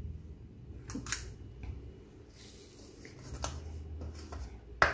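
Spring-release metal cookie scoop working in a stainless steel bowl of stiff oatmeal cookie dough: a few sharp clicks and scrapes as the dough is scooped and the lever is squeezed to release it, the loudest click near the end.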